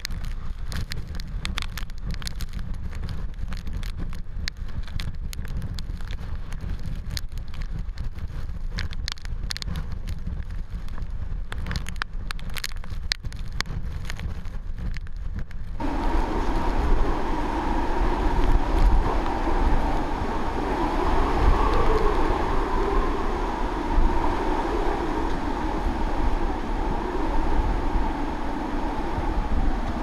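Typhoon wind buffeting the microphone in a low rumble with scattered knocks. About 16 s in it changes suddenly to louder eyewall wind and driving rain, with a wavering higher pitch running through it.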